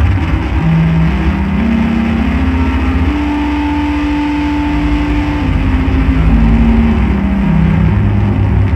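Loud live drone-noise music: a dense low rumble under sustained electronic drone tones that shift in steps, with a higher tone held through the middle.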